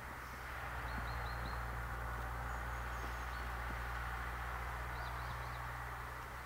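Small birds chirping in short quick groups of three or four notes, over a steady low hum of distant machinery.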